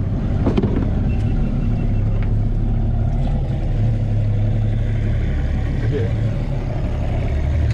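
Tohatsu outboard motor on a small fishing boat idling close alongside, a steady low hum.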